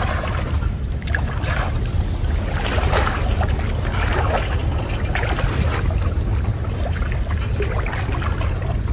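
Muddy water sloshing and splashing in irregular surges as a person wades through it thigh-deep. A steady low rumble runs underneath.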